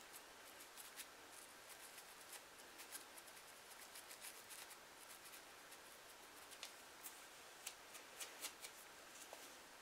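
Faint, crisp scratching of a fine-tooth comb scraped along a part in a dry, flaky scalp, loosening built-up dandruff flakes; irregular short scrapes, with a run of louder ones near the end.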